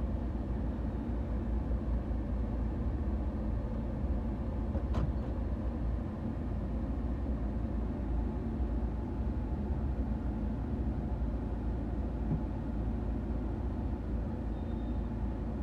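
Mahindra Scorpio's engine idling, heard inside the cabin as a steady low hum, with a single faint click about five seconds in.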